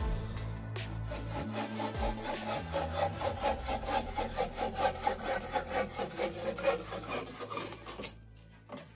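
Bow saw cutting through a wooden board in quick regular back-and-forth strokes, about three a second, stopping about eight seconds in.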